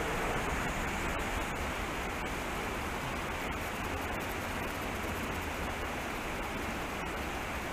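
Steady rush of a shallow creek flowing over rocks.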